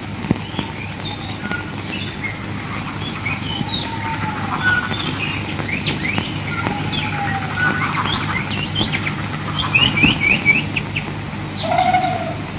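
Songbirds chirping with many short rising and falling calls, and a quick run of chirps about ten seconds in, over the steady hum and hiss of an old film soundtrack.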